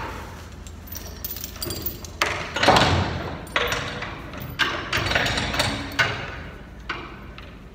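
A series of about six knocks and clanks over several seconds, each echoing off the concrete walls of an upright silo, as the unloader chute boards and a chain are handled and fitted in the silo door opening.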